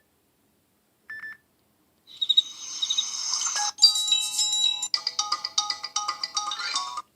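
Samsung Galaxy S3 ringtone previews played through the phone's speaker. A short beep comes about a second in, then three different ringtones play one after another, each cut off after a second or two as the next one is selected.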